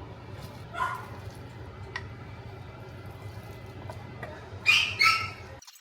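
Two short, loud animal calls in quick succession near the end, with a fainter one about a second in, over a steady low hum.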